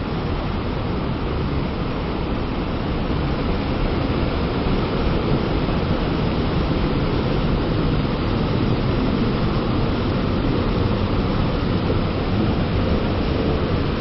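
Waterfall and fast river current rushing close by, a steady, unbroken wash of water noise.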